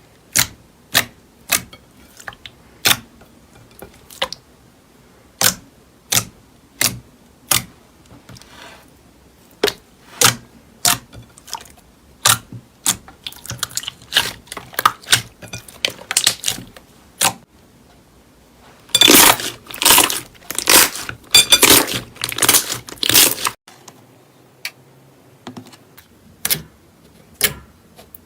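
Hands pressing and poking slime, making sharp clicking pops at irregular intervals, with a dense run of crackling pops about two-thirds of the way through.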